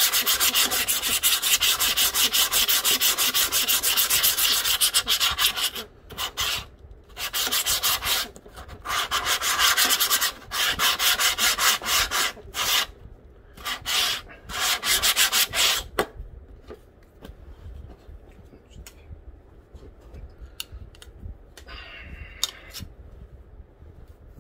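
Diamond lapping plate scrubbed back and forth over the cracked Gorilla Glass screen of a broken Samsung Galaxy S10, roughing up the glass: a fast, gritty rasp of rapid strokes. It runs steadily at first, then comes in start-stop bursts, and stops about two-thirds of the way through, leaving only faint knocks.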